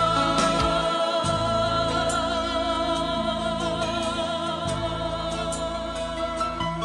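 A woman singing a long held note with vibrato over musical accompaniment, slowly fading.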